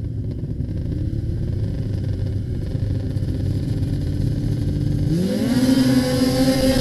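Racing snowmobile engine running at low revs, then revving up sharply about five seconds in and holding a high, steady pitch as the sled accelerates away.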